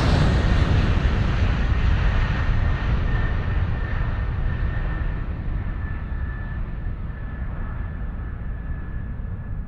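Rushing roar of a fast vehicle that has just gone by, fading away slowly, with a faint steady high whine in the middle.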